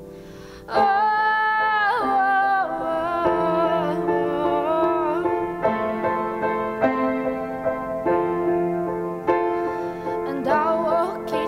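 Woman singing a slow ballad to her own acoustic piano accompaniment; after a soft pause of under a second, voice and piano come in together and carry on.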